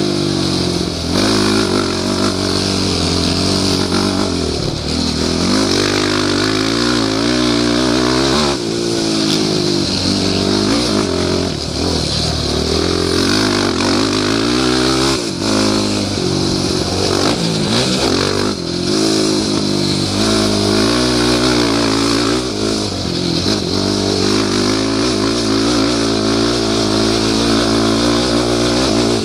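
Yamaha YFZ450 quad's single-cylinder four-stroke engine under hard riding, its pitch repeatedly rising and falling as the throttle is opened and backed off through the turns, with brief drops where the rider lifts off or shifts.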